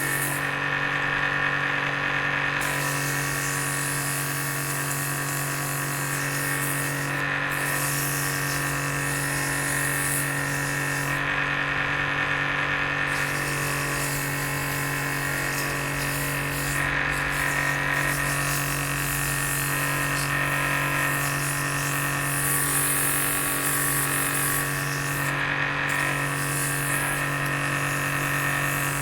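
Bench drill press running steadily, used as a lathe to spin a wooden chisel-handle blank while a hand-held tool cuts the turning wood. The cutting hiss stops briefly a few times, about a second in, around eleven seconds in and near the end, while the motor hum goes on.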